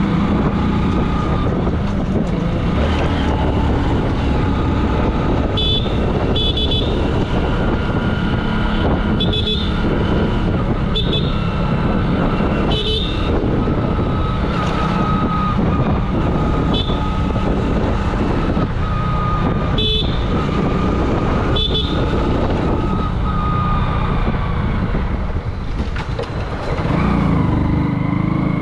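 Hero Glamour 125 cc single-cylinder motorcycle running at road speed, heard from the rider's seat, with about eight short, sharp sounds in the first two-thirds. Near the end the engine note dips and changes as the bike slows.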